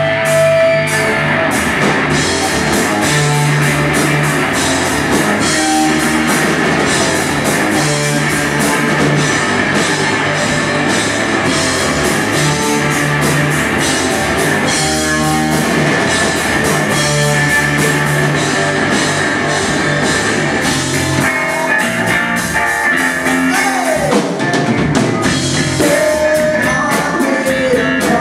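Rock band playing live: drum kit, electric guitar and bass. The bass and drums drop back for the last several seconds, leaving mostly guitar.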